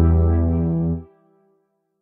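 Music ending on a held low chord that cuts off about a second in, leaving a short faint tail.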